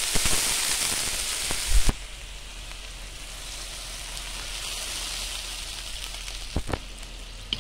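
Water poured into a kazan of hot oil with frying meat and carrots, hitting the fat with a loud hissing sizzle for the first two seconds, then settling to a quieter steady sizzle as the water keeps running in. A few light knocks come along with it.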